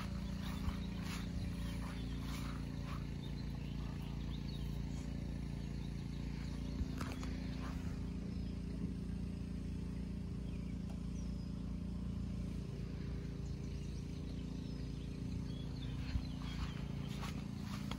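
Steady low hum of a distant motor running, with a few faint clicks over it.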